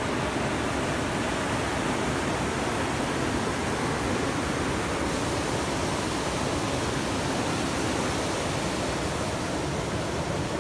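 Steady rushing noise of wind buffeting the microphone over open water, unbroken throughout.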